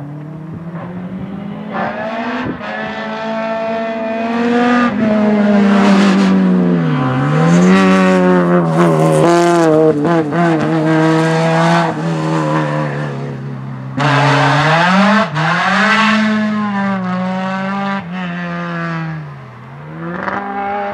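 Rally car engine at full throttle, its note climbing as it revs through the gears. The pitch dips sharply and picks up again about seven seconds in, again around fifteen seconds, and near the end as the driver lifts and changes gear through the bends.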